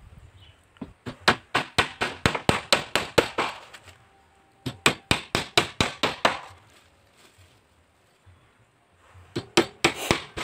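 A hammer striking a wooden boat plank, rapid blows at about four a second in three runs with short pauses between.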